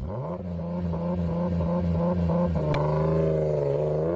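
Car engine sound effect: a lumpy idle throbbing about three or four times a second, a sharp click partway through, then the engine note starting to rise as it revs near the end.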